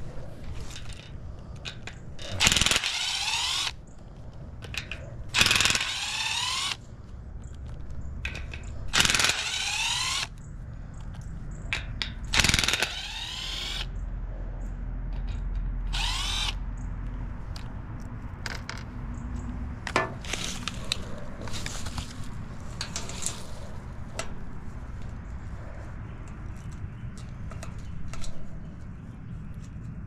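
Cordless power driver run in five short bursts of about a second each, spinning out the bolts that hold a heat pump's condenser fan motor to its fan grille, followed by lighter clicks and clatter of the metal parts being handled.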